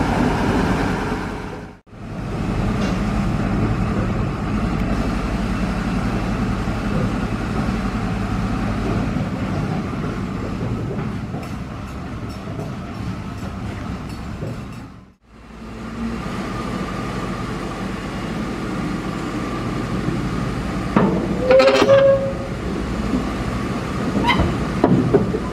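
Schoma diesel shunting locomotive running steadily with a low engine rumble while shunting tank wagons. The sound cuts out briefly twice. Near the end there are a few sharp metallic clanks and a short pitched tone.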